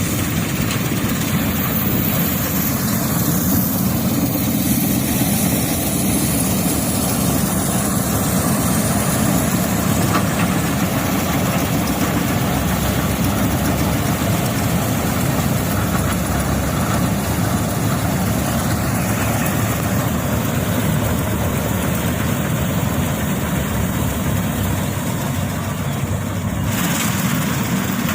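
Wheat harvesting machine running steadily, a loud, continuous engine and machinery din.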